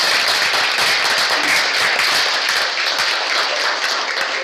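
A small group of people applauding with steady, dense clapping.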